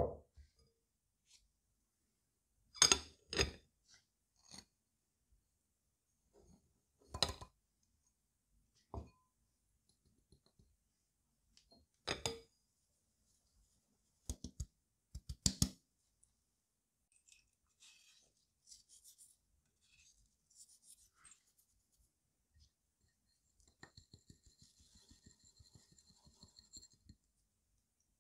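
Scattered light knocks and clinks of a glass mixing bowl and utensils while a bread batter is mixed and flour is sifted through a metal sieve, with a run of quick light ticks and a faint hiss near the end.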